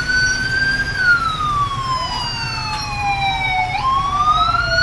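Police car sirens on a slow wail. The tone climbs to a peak about a second in, sinks slowly for about three seconds, then jumps back up and climbs again near the end, while a second siren sounds out of step with it.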